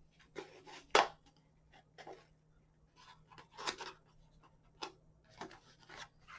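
Hands handling small craft items and their packaging: scattered light clicks, taps and rustles, the sharpest about a second in.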